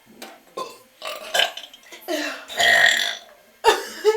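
Little girls burping: a few short vocal sounds, then one long, loud belch starting about two seconds in and lasting over a second, followed near the end by another sudden short one.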